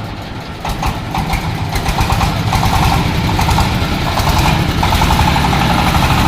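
Corn sheller machine's engine running, picking up speed and getting louder about two seconds in, with a rapid, even rattle.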